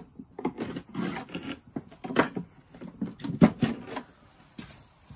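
Wooden hive frames being pried loose with a metal hive tool and lifted out of a wooden honey super: irregular knocks and scrapes of wood on wood. The loudest knock comes about three and a half seconds in.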